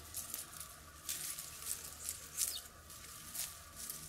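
Olive branches rustling as young leafy twigs are gathered by hand from the tree: about five short, crisp rustles over four seconds, faint.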